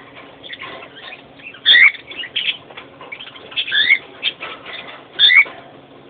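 Pet birds calling: three loud short calls, each with a quick rising note, spaced about one and a half to two seconds apart, with softer chirps in between.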